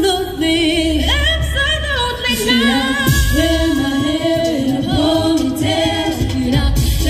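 Pop song with female vocals singing over a backing track with a deep pulsing bass, played through stage loudspeakers.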